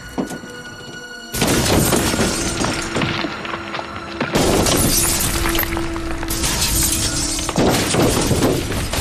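Dramatic music with loud crashing and shattering sound effects. It starts with quieter sustained tones, then from about a second and a half in bursts into a loud, noisy crash that swells again about halfway through.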